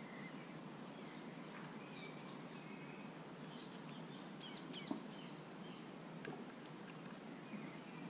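Faint chirps and whistled calls of wild birds over a steady outdoor hiss, busiest around the middle, with a few sharp taps, the loudest just before five seconds in.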